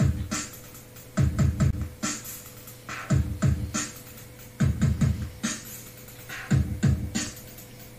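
Electronic music with a heavy kick-drum beat, played from a phone through a homemade class A MOSFET amplifier (IRFZ44N, loaded by a TV power-factor-corrector inductor) into a speaker. The kicks come in quick clusters about every second and a half, with sharp percussion hits between and a steady low tone underneath.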